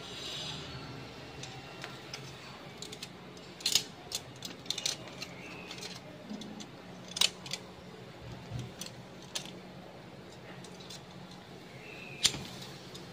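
Stainless steel tongs clicking and clacking against a wire grill grate, in scattered sharp clicks, while tuna jaws are turned over charcoal. A low steady hum runs underneath.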